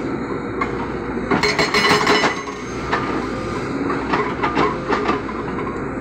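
JCB 220 excavator's hydraulic rock breaker hammering rock: rapid runs of sharp metal-on-stone blows over the steady running of the excavator's diesel engine. The loudest spells of hammering come from about one to two seconds in and again around four to five seconds in.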